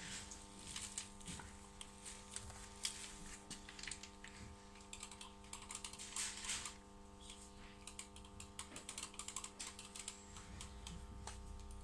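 Faint, irregular clicks and brief rustles of handling, over a steady electrical hum.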